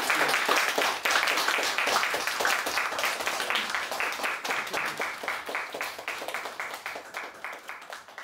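A small audience applauding, the clapping dying away and thinning to a few separate claps before it stops.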